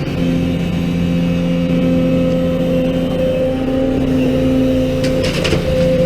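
Heavy diesel engine of earthmoving machinery running steadily, its note dropping slightly about four seconds in. A few short metallic knocks sound about five seconds in.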